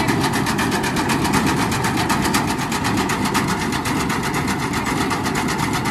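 Tractor running with its front-mounted soybean reaper, a fast, even mechanical clatter.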